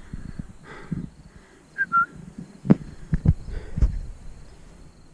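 Several dull knocks, the loudest about three to four seconds in, with a short high chirp about two seconds in.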